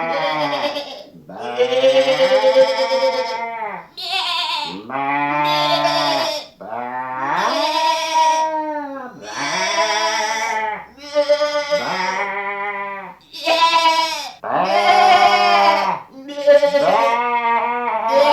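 Sheep bleating "baa" over and over, about ten calls in a row. Each call lasts a second or two and wavers up and down in pitch.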